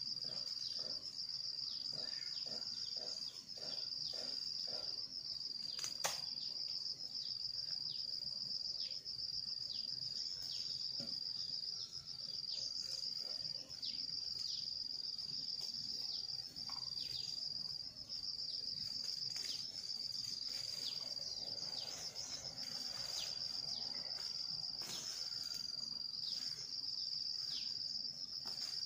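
Insects keeping up a steady high-pitched drone, with a short break about every two seconds. A single sharp knock about six seconds in, with faint scattered knocks and scrapes.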